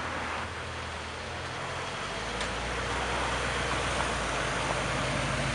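Engine of a classic coupe running steadily at low revs as the car pulls slowly out, getting a little louder about two seconds in as it draws close.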